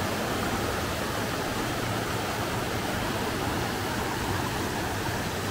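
Mountain river rushing over rocks: a steady, even rush of water.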